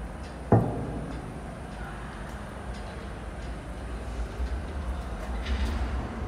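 R42 subway cars of a refuse train pulling out of the station, with a single sharp bang about half a second in. After it comes a low rumble that grows louder as the train gathers speed.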